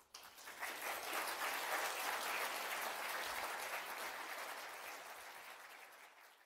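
Audience applauding, starting suddenly, building over the first second or two and then slowly fading.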